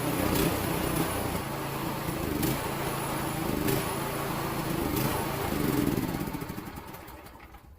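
New 6.5-horsepower Predator single-cylinder engine running steadily, breaking in on its first run. About six seconds in it is shut off and dies away over the last couple of seconds.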